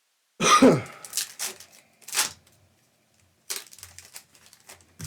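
Foil trading-card packs and cards being handled and torn open: several short crinkles and rustles. About half a second in there is the loudest one, a sharp burst that falls in pitch.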